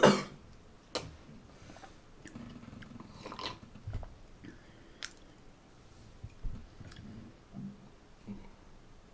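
A person chewing and biting food close to the microphone, with scattered short mouth clicks.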